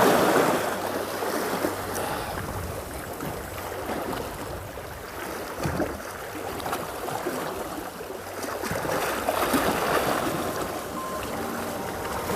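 Sea surf washing onto the shore, rising at the start and again about nine seconds in.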